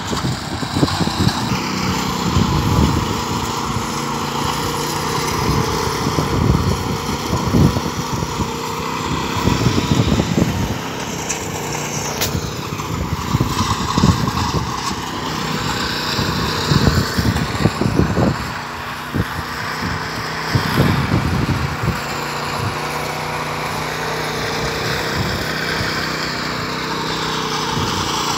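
Engine of a concrete power trowel running steadily while it smooths a fresh concrete slab.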